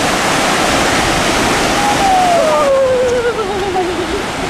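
Steady rush of ocean surf breaking on the beach. About two seconds in, a voice gives one long, wavering, falling "ooh".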